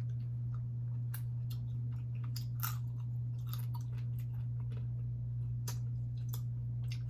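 Close-up eating of cold boiled blue crab: chewing with irregular crisp clicks and cracks of crab shell. A steady low hum runs underneath.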